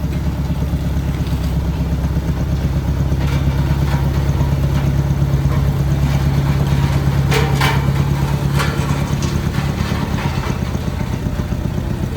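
A road compactor's engine running steadily with a strong low hum as freshly laid asphalt patch is compacted. It gets a little louder through the middle, with a few short metallic clanks about seven and a half seconds in.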